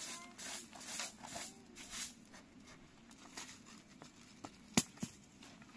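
Long bundled-straw hand broom sweeping a mat and dirt floor: a run of brisk swishes, about two or three a second, over the first three and a half seconds. A sharp tap comes nearly five seconds in, followed by a fainter one.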